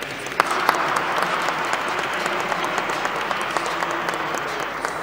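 Audience applauding, the clapping swelling about half a second in and then holding steady.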